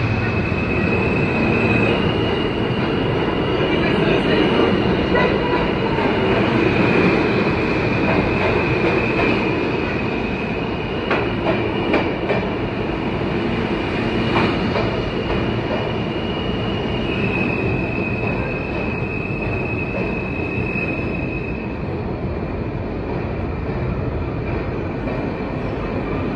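R160 subway cars rolling past at close range in an underground station, a steady rumbling run of steel wheels on rail. Over it a high, steady whine shifts pitch a couple of times, and a few sharp rail-joint clacks come about halfway through.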